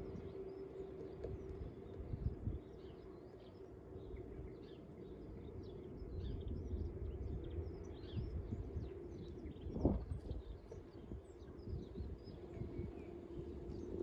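Faint chirps of small garden birds calling, scattered throughout, over a low rumble and a steady low hum. One dull thump about ten seconds in.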